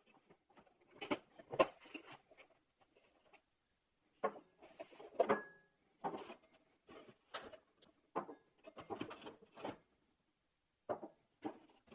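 Cardboard gift box being opened and handled, with glass tumblers lifted out and set down on a wooden tabletop: scattered rustles and light knocks in clusters, with short pauses between them.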